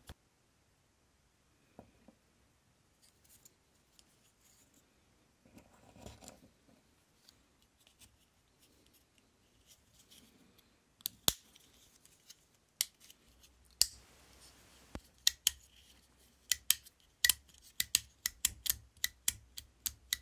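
Plastic clicks from a Triumph TR7 dashboard headlight rocker switch being put back together and worked by hand. There is only faint handling for the first ten seconds or so, then sharp clicks that quicken to a rapid run of several a second in the last few seconds.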